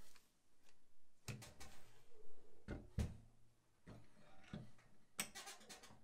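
A rifle being set into a Tanosteel ProRack gun rack and the rack's gun lock gate worked over its handguard: scattered knocks and clicks of gun against rack, a louder thump about three seconds in, and a quick run of clicks near the end as the lock closes.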